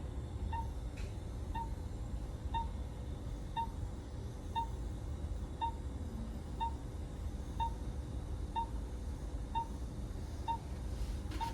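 Patient monitor (pulse oximeter) beeping once per heartbeat, a short mid-pitched beep about once a second, over a steady low equipment hum.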